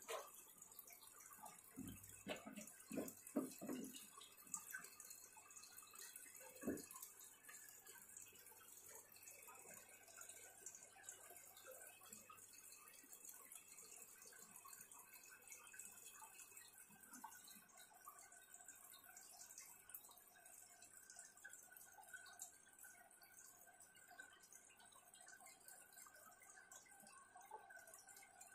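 Faint trickling and dripping water, with a few short knocks a couple of seconds in and one more a few seconds later.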